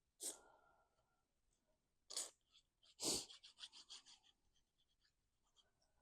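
Faint, brief rustles of cardstock being handled and pressed into place: three short ones over the first few seconds, the last trailing off in light crackles.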